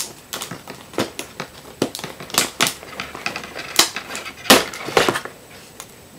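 Stiff plastic packaging being cut open: a string of irregular crackles and snaps, the loudest about four and a half seconds in, dying down near the end.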